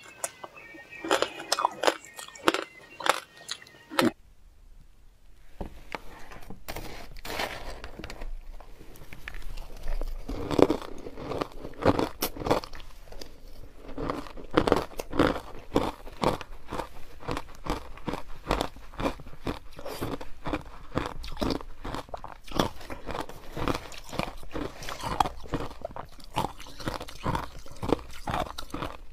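Frozen ice being bitten and chewed close to the mouth, a dense run of crisp crunches, with a short pause about four seconds in.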